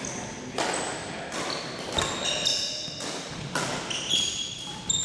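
Badminton rally: four sharp racket hits on the shuttlecock, about one every second and a half, each followed by a brief echo, with sneakers squeaking in short high chirps on the gym floor between them.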